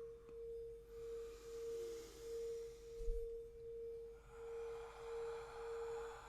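A steady, pure humming tone that swells and fades in a slow, even pulse about once a second, with a brief soft low thump about three seconds in.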